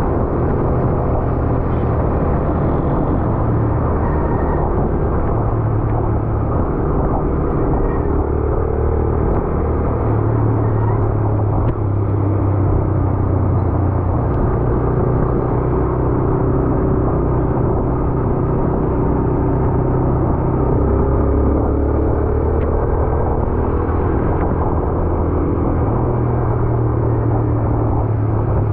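Motorcycle engine running while riding, with steady wind and road noise; the engine note steps up and down as the speed changes, with a few slow rising pulls.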